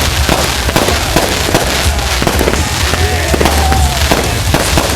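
Fireworks going off in a rapid barrage, many sharp bangs and crackles overlapping over a deep rumble.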